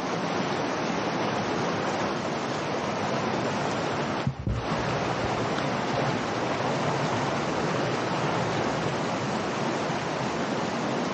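Creek water rushing steadily through a narrow canyon, with a brief drop and a low thump about four seconds in.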